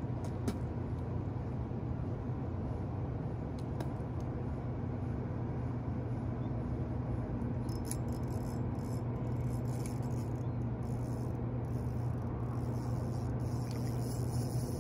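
A fishing reel's drag ticking and buzzing in stop-start runs from about halfway through as a fish pulls line off the rod, growing stronger near the end. Under it is a steady low rumble.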